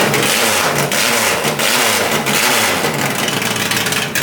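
Fiat 133's four-cylinder engine, on a 32–34 carburettor setup with a 2.5 kg flywheel, being revved hard again and again, the revs rising and falling quickly. The engine is still cold.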